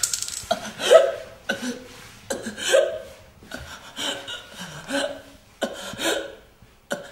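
A young woman gasping and choking in short, repeated breaths as she is strangled.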